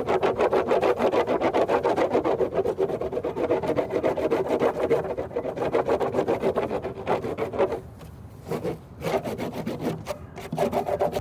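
Quick back-and-forth rubbing strokes on a hard surface, several a second, with two short pauses in the second half.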